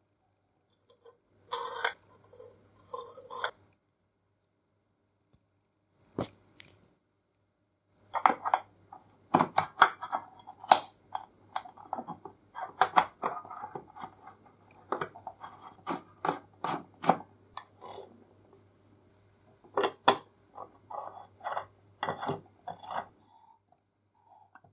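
Light metal clicks and clinks of a restored oil can being reassembled by hand: the spout tube with its brass knurled nut is fitted and threaded onto the painted steel can. A few clicks, then a quiet stretch of several seconds, then a long irregular run of clicks that stops shortly before the end.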